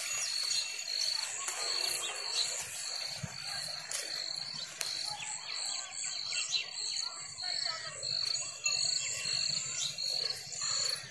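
An insect chirping in a steady rhythm, a high tone pulsing about twice a second, with birds chirping over it.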